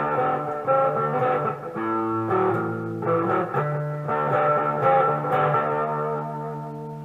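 Monoprice Mini Cali electric guitar played with mild overdrive on its humbucker pickup alone: strummed chords that change every second or so, the last one left ringing and fading near the end.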